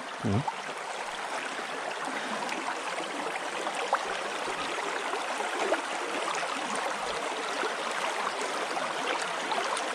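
Shallow rocky stream running steadily over stones, heard close by, with a few faint ticks.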